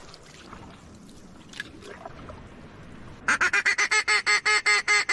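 Hand-held duck call blown in a fast, even run of short quacking notes, about eight a second, starting about three seconds in. Before it there is only faint outdoor background.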